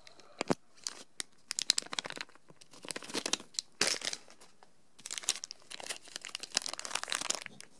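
Plastic blind-bag packet of Yokai Watch medals being crinkled and torn open by hand, in several short bursts of crackling with pauses between them.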